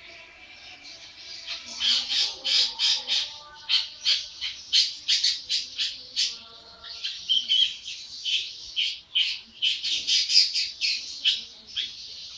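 Young long-tailed shrike (cendet) calling vigorously: a rapid string of short, high notes, several a second, starting about a second and a half in and running on with barely a break.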